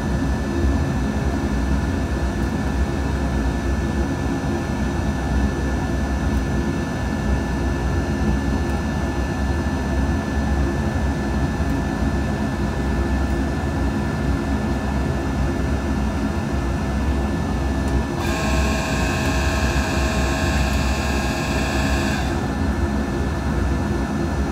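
Steady machine hum with a low rumble and a few faint steady tones. For about four seconds near the end, a higher whine of several tones joins it and then cuts off.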